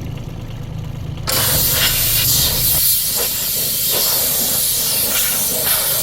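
A high-pressure cleaning jet starts suddenly about a second in and runs as a loud, steady hiss. Before it starts, a low engine rumble from the mini excavator is heard.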